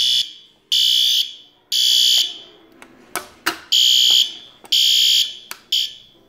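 Fire alarm sounding in the temporal-3 evacuation pattern: three half-second blasts of a high, piercing tone, a pause of about a second and a half, then three more. A couple of faint clicks fall in the pause.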